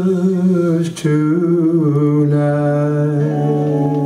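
Male voices singing a long, slow held note on the word "Christmas" over electric and acoustic guitars, the closing line of a country Christmas song. The pitch wavers at first, with a short break about a second in, then settles into a steady held chord from about two seconds in.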